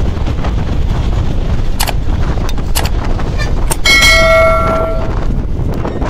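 Steady low rumble of a moving bus with wind buffeting the microphone, broken by two short knocks. About four seconds in comes a brief ringing tone lasting about a second, like a bell or horn.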